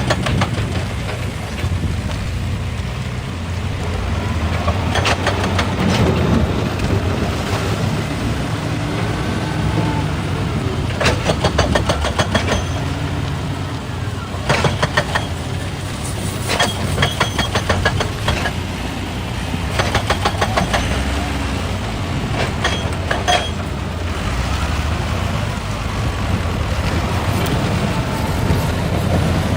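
Excavator's diesel engine running steadily, with repeated short bursts of rapid metallic rattling and clanking every few seconds.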